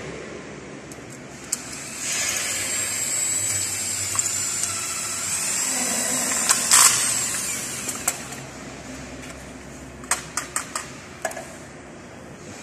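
Cordless drill-driver driving a screw into a thermostat base plate on a wall: the motor whines for about five seconds, its pitch wavering, then stops. A few sharp clicks follow near the end.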